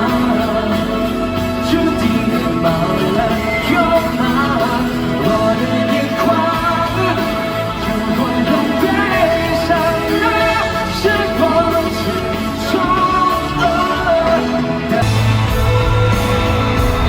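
Live pop-rock concert music: a band playing with singing over it, and heavier bass and drums coming in near the end.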